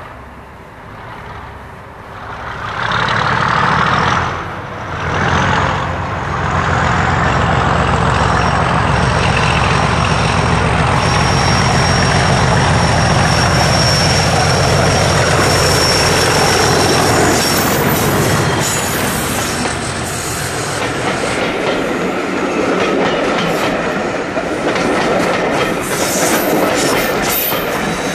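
English Electric diesel locomotive hauling coaches approaches and passes close by, its engine note building loud and deep, with a high steady whistle over it. After it has gone by, the coaches roll past with clattering wheels over the rail joints.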